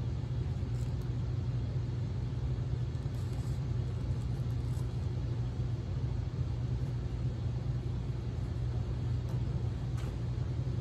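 Steady low machine hum filling the room, with a few faint rustles and soft knocks as the witch prop's fabric dress is handled.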